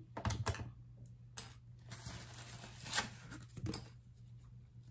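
Rustling and light crinkling as a lace wig is handled and taken out of its packaging, in a few short bursts with the loudest near the start and about three seconds in, over a low steady hum.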